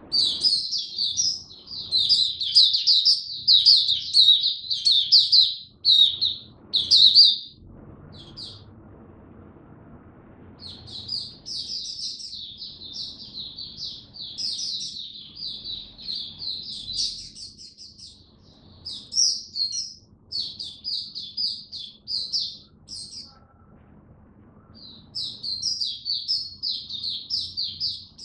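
White-eye (mata puteh) singing: long runs of rapid, high twittering notes. Pauses come at about nine seconds in and again around twenty-four seconds, with shorter broken phrases between about nineteen and twenty-three seconds.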